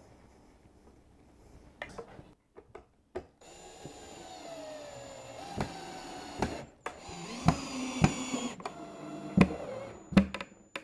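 Ryobi One+ cordless drill driving screws into pre-drilled cabinet panels: two runs of motor whine, the first falling in pitch, with a few sharp knocks between and after.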